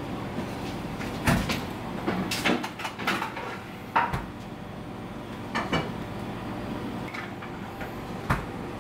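Handling clatter: a few sharp knocks and thuds as a large, wet stingray is moved on a stainless steel table, over a steady low hum.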